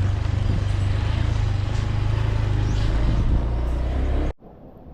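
Motorbike running along the road, a steady low engine rumble with wind rushing over the microphone. It cuts off abruptly near the end.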